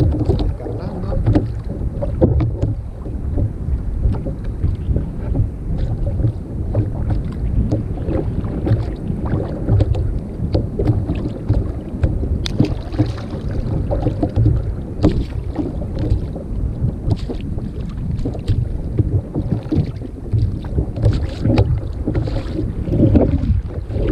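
Wind buffeting an action-camera microphone, a continuous low rumble, over water lapping against a plastic sit-on-top kayak's hull, with scattered light knocks and clicks of fishing line and tackle being handled.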